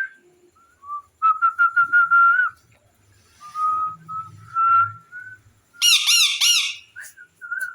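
Pet parrot whistling: long level whistles, the first dotted with quick clicks, then a few loud, harsh arching squawks about six seconds in.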